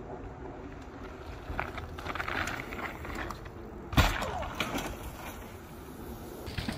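Mountain bike tyres crunching over a dirt trail, then a sudden loud impact about four seconds in as the rider crashes at a jump, followed by a brief clatter.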